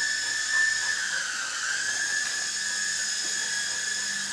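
Toy remote-control helicopter's small electric motor and rotor running with a steady high-pitched whine. The pitch sags briefly about one and a half seconds in, then comes back up.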